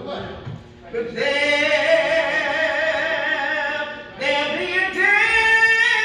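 A woman singing into a microphone over a hall's sound system, holding two long notes with vibrato, the second starting about four seconds in.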